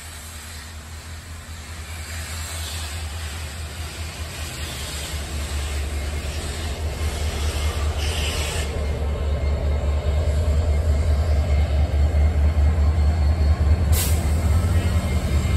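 A slow train rolling past close by, Big Boy 4014's tenders followed by the trailing UP 1983 EMD SD70ACe diesel locomotive, whose low engine rumble grows steadily louder as it approaches. A single sharp click comes near the end.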